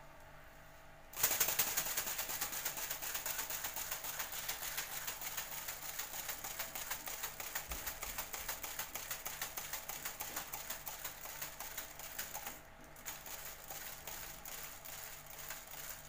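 Rubber-band-powered ornithopter toy bird flapping its plastic-film wings, a rapid, even fluttering clatter as the unwinding rubber band drives the crank. It starts about a second in and weakens after about twelve seconds as the rubber runs down.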